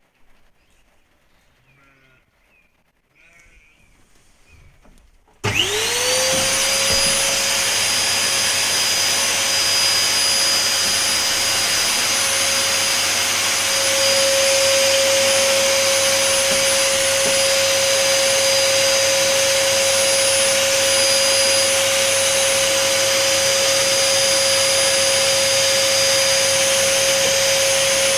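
Vacuum cleaner switched on about five seconds in: its motor winds up quickly to a steady high whine with a rush of air, and runs continuously.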